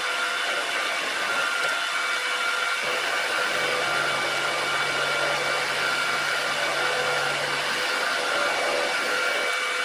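Bernardo BF 30 G milling machine spindle running steadily with a whine while an end mill takes a 2 mm cut off an aluminium block. A lower hum joins from about three to eight seconds in.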